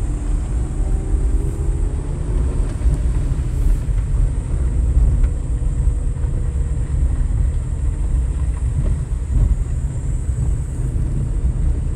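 Vehicle driving along a gravel road, a steady low rumble of tyres and engine with no change in pace.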